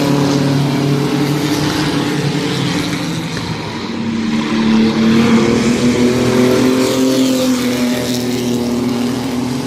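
Several mini trucks' race engines running hard as the field laps the track, their overlapping engine notes rising and falling in pitch as trucks pass by. The sound swells louder about halfway through.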